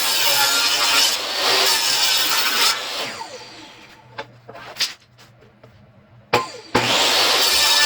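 Electric power tool motor running loudly at full speed, then switched off and spinning down about three seconds in, with a few clicks while it is quiet. It starts up again abruptly near the end.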